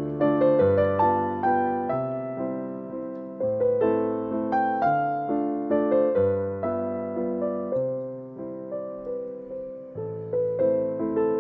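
Background piano music: a gentle melody over low bass notes, each note struck and left to fade.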